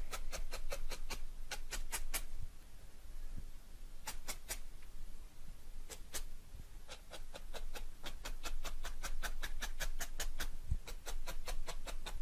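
A felting needle stabbing again and again through wool into a dense foam mat, going over a finished wool picture to secure loose fibres. It makes quick runs of sharp clicks, about five or six a second. There is a break between about two and four seconds in, a short burst near four seconds, and then a long steady run from about seven seconds on.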